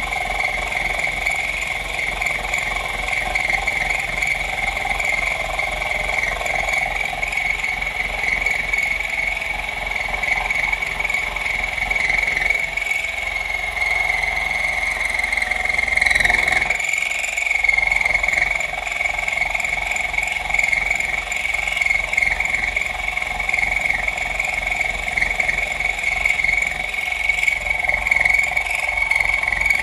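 End mill cutting Uddeholm Sleipner tool steel on a small home-built manual mill, its 500 W motor turning at low speed under load: a steady high whine with a fine even pulsing. The pitch sags briefly about halfway through, as the motor is loaded harder.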